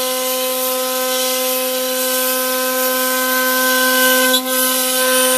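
C.R. Onsrud CNC router cutting plywood: a steady whine from the spinning router spindle over the hiss of the bit chipping through the wood, dipping briefly about four and a half seconds in.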